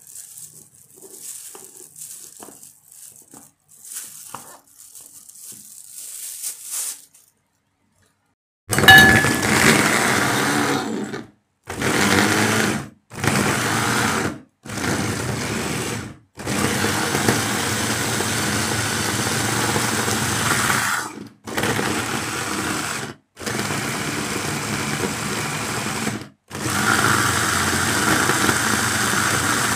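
Moulinex electric mini chopper running in about eight pulses of one to five seconds each, its blade chopping chunks of carrot, onion, tomato and pepper. Before it starts, about nine seconds in, there are faint clicks from the plastic bowl and lid being handled and fitted.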